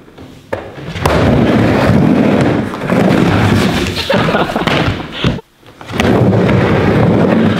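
Skateboard wheels rolling across a wooden bowl ramp, a loud, low rumble with a few sharp knocks. It breaks off for about half a second some five and a half seconds in, then resumes.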